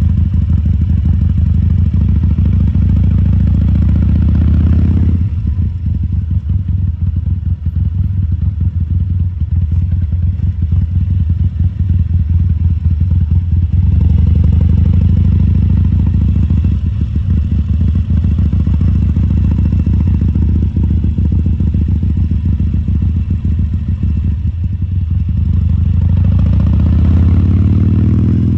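2014 Harley-Davidson Sportster 1200 Custom's air-cooled V-twin running at low speed. The note drops off about five seconds in, as if the throttle is eased off, comes back steady at about fourteen seconds, and climbs in pitch as the engine revs up near the end.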